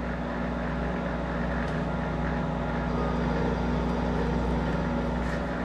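Monarch 10EE toolroom lathe running with a steady hum while taking a single-point threading pass on a 7/8-20 thread.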